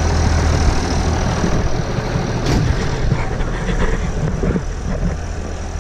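Farm tractor engine running at idle, a steady low rumble, with a single knock about two and a half seconds in.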